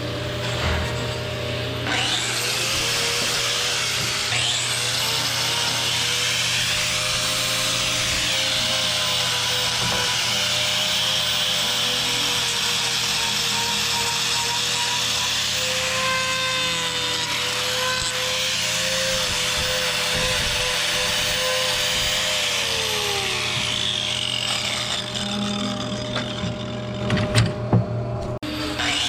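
Angle grinder fitted with a three-blade carbide hoof-trimming wheel, cutting cow hoof horn: a steady motor whine that wavers with the load under a rasping hiss. It starts about two seconds in, the whine drops in pitch as it winds down near the end, and a few knocks follow.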